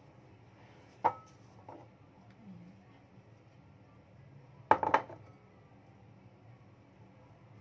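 Kitchen crockery handled on a stone countertop: a sharp single clink with a short ring about a second in, then a quick cluster of louder knocks as a large ceramic bowl is shifted and set down. A faint steady low hum runs underneath.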